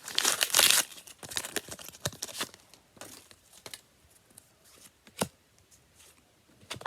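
A trading-card pack's wrapper being torn open: a loud rip in the first second, followed by crinkling of the wrapper for a couple of seconds, then a few faint clicks and one sharp click about five seconds in.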